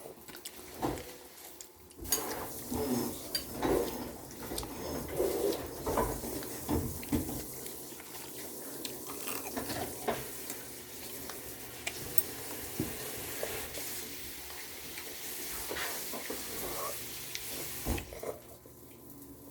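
Utensils clicking and clinking against dishes while eating, scattered irregular taps over a faint steady hiss.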